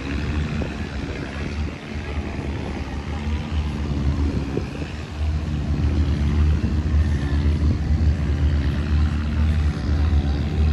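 An engine running steadily with a low drone, growing a little louder about halfway through.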